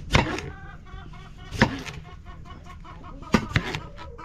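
Domestic hen cackling: a few loud, sharp squawks with quicker clucks between them. This is the cackle a hen gives when laying an egg.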